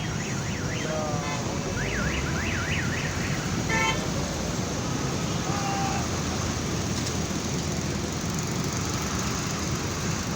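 A warbling electronic alarm, its pitch sweeping quickly up and down about ten times in the first three seconds or so, over a steady low rumble of engines and traffic. A short buzzy beep follows at about four seconds.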